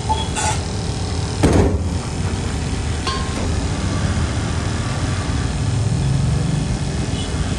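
Metal knocks and clanks as an iron gas-burner stand is set on a steel counter and handled. The loudest is a ringing clank about one and a half seconds in, with lighter clinks after it. A steady low rumble runs underneath.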